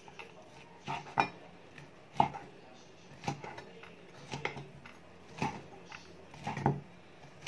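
Broad-bladed kitchen knife cutting cooked shrimp on a wooden cutting board: sharp knocks of the blade hitting the board, about one a second, some doubled.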